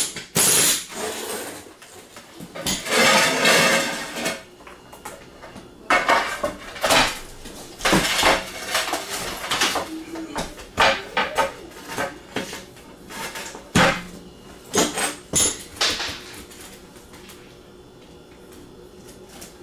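Porcelain floor tiles clinking and scraping as they are lifted off the subfloor and handled, with irregular sharp knocks and several longer scrapes.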